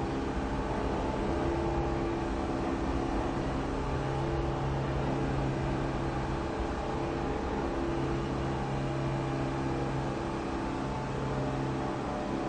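New York City subway station ambience: a steady low mechanical drone with a few held hum tones over a rumbling noise bed. The hum tones fade briefly a couple of times and then return.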